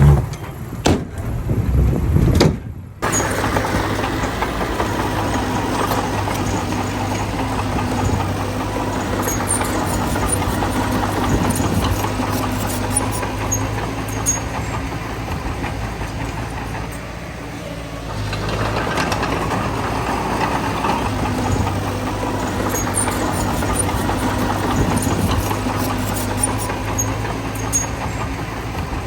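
Heavy diesel engine of earthmoving machinery running steadily, easing off briefly a little past halfway and then picking up again. A few low thumps come in the first seconds, before an abrupt cut.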